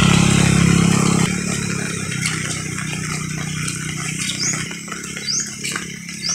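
A small vehicle engine running steadily, then dropping much lower about a second in, with rain hissing underneath. Near the end come three short, high rising chirps.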